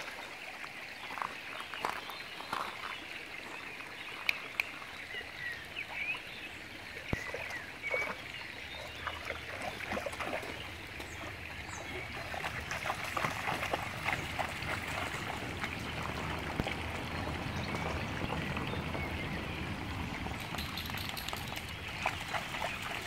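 Shallow creek trickling over stones, with a dog's legs splashing in the water now and then as it wades about.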